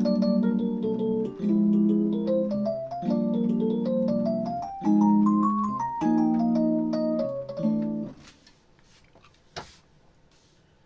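Digital piano playing a jazz piece: held chords over a low sustained bass note with a melody stepping up and down, stopping about eight seconds in. After it stops, faint handling sounds and one short clink, as the glass of iced drink is picked up.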